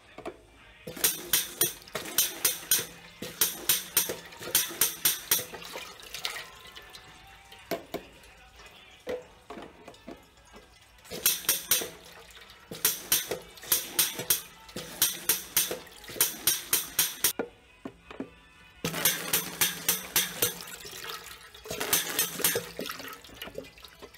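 Water jetting from the spring-loaded nozzles of a two-nozzle stainless-steel manual bottle rinser into plastic bottles pushed down over them, splashing in the steel sink. It comes in spells of a few seconds, each a rapidly pulsing hiss over a steady low hum, with quieter pauses between.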